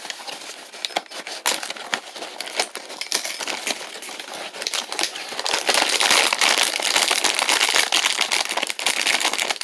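A cracker box and its inner bag being opened by hand: a continuous crinkling and crackling, with many small clicks, that gets louder about halfway through as the bag is pulled open.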